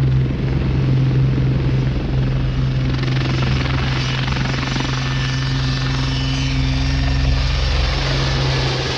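Westland 30 helicopter running close by at lift-off power: a loud, steady low rotor drone with a faint high turbine whine above it, as it rises off the ground into a low hover.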